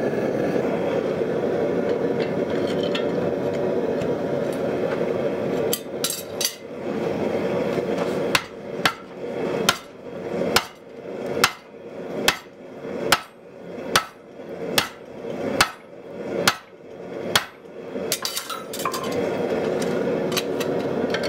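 A forge burner runs with a steady rush. About six seconds in, hammer blows start on a handled tool set against red-hot truck-spring steel on a swage block: about a dozen ringing metal strikes at roughly one a second.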